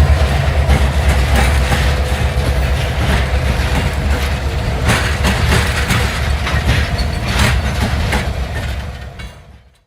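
Canadian Pacific train rolling past: a steady low rumble with sharp clicks and clatter from the wheels and cars. It fades out over the last second.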